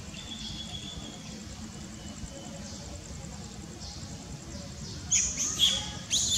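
Shrill squeals of a baby long-tailed macaque: several quick calls that sweep up and down, starting about five seconds in, over a faint steady insect buzz.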